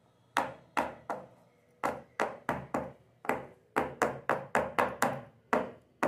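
A round metal cake tin full of batter being knocked down on a hard surface again and again, about three sharp knocks a second, to bring air bubbles out of the batter before baking.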